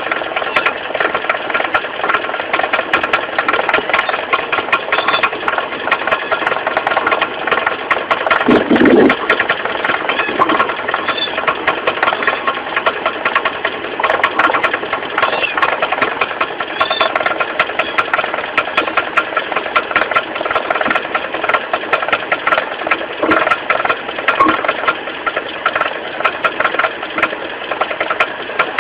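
Mitsubishi 4G15 carbureted inline-four idling with a fast, steady knocking rattle from the crankshaft pulley area: the crankshaft pulley has worked loose on the crank.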